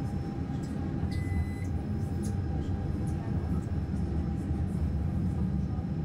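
Moving subway train heard from inside the car: a steady low rumble of wheels and running gear on the track. A short high-pitched tone sounds about a second in.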